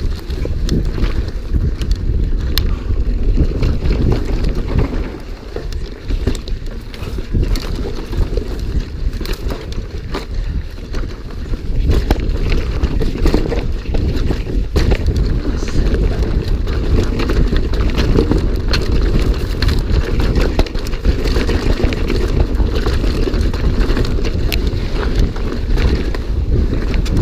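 Wind buffeting the microphone as a mountain bike descends a rough trail at speed, with frequent sharp clicks and rattles from the bike over the rough ground. It gets louder about halfway through.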